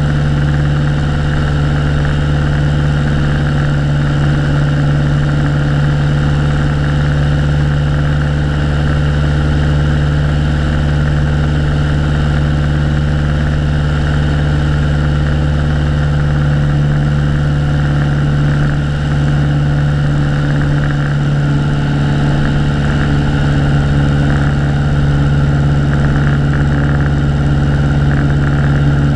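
Piper PA-22 Colt's four-cylinder Lycoming engine and propeller droning steadily in flight, heard from a camera mounted outside on the wing, with wind rushing past.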